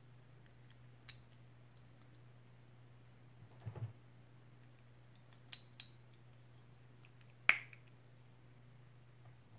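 Small hard-plastic Playmobil figure parts clicking and tapping as they are handled and snapped together: a few scattered clicks, a short cluster near the middle, two quick clicks and then the loudest, sharpest click about three-quarters through. A faint steady low hum runs underneath.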